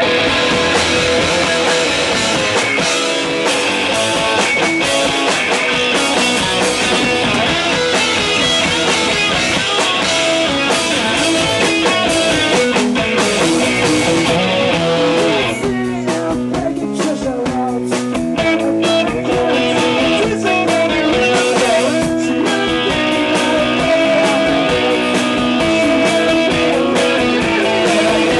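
Loud rock band music: distorted electric guitars, bass and drums playing continuously, as in a punk or rock song.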